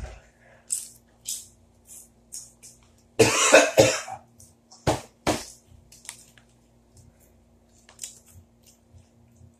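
A man coughing hard: a loud run of coughs about three seconds in, then two sharp single coughs, with quieter short sounds between. He has inhaled ghost pepper chip crumbs instead of swallowing them.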